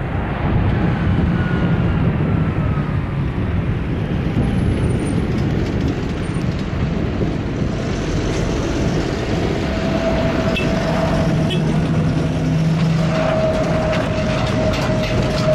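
Airbus A321neo jet engines running as the airliner rolls along the runway: a steady, loud jet rumble, with a steady whining tone that comes in about halfway through and grows stronger near the end.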